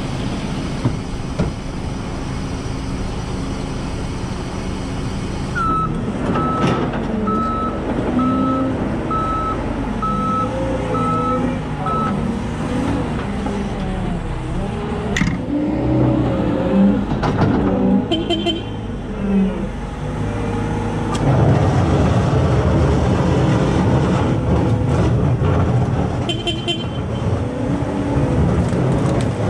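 Vehicle engine running, with a reversing alarm sounding a run of about eight short, evenly spaced beeps over some six seconds, starting about six seconds in.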